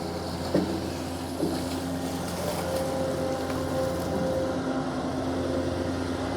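Long-arm excavator's diesel engine running steadily with a low hum while it loads a dump truck, with a couple of faint knocks early on.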